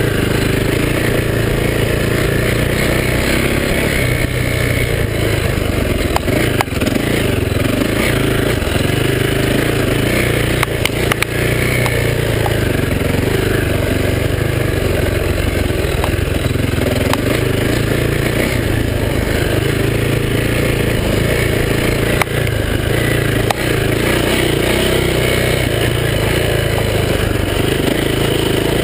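Dirt bike engine running steadily at trail-riding pace, with a few sharp knocks as the bike rides over the rough trail.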